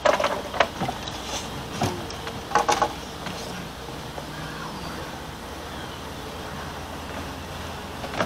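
A few sharp clicks and knocks from fishing gear being handled on a wooden dock, bunched in the first three seconds, then a steady low background rumble.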